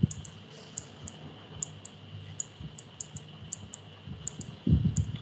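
Faint, sharp clicking, about three clicks a second, over a steady high-pitched electronic hum, with a short cluster of low knocks near the end.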